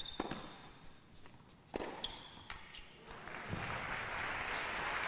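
Tennis rally on a hard court: sharp racket strikes on the ball and sneaker squeaks, then the crowd applauding from about three seconds in as the point ends.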